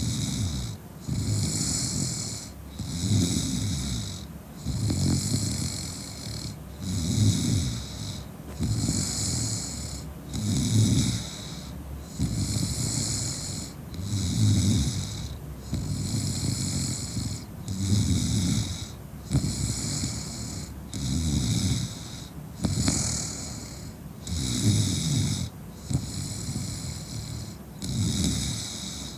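A woman snoring in a drunken sleep, about one breath every two seconds: a low rattling snore alternating with a hissing breath.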